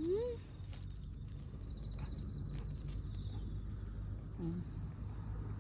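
A cricket trilling steadily on one high note over a low background rumble. A woman hums a short rising note at the start and again briefly about four and a half seconds in.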